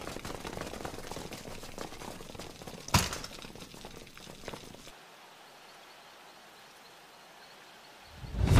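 Footsteps and shuffling of a group of people hurrying away, with one sharp knock about three seconds in. It fades to a low hush, and music with drums comes in near the end.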